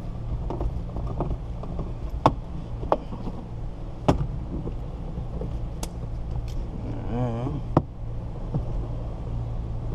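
Windshield cut-out wire being wound with a ratchet winder and drawn through the urethane bead, giving sharp irregular clicks every second or so over a steady low hum.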